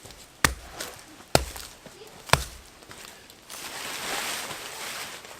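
Three sharp blows on wood, about a second apart, from cutting or driving a stick, then a rustling scrape lasting about a second and a half.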